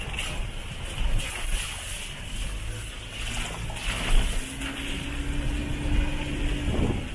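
Wind buffeting the camera's microphone, a rough steady rumble and hiss. From about halfway through, a faint steady engine hum runs under it until near the end.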